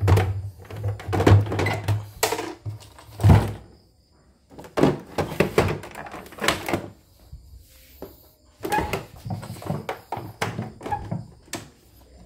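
Polystyrene foam packing blocks pulled off a portable embroidery machine, and the machine's plastic body handled and set down on a wooden workbench: a series of irregular thunks and knocks, with rubbing between them.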